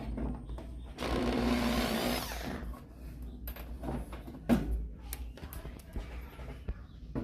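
A power drill or driver runs for about a second and a half, most likely spinning out a screw while the washing machine is being taken apart. Several sharp knocks and clicks of handled parts follow.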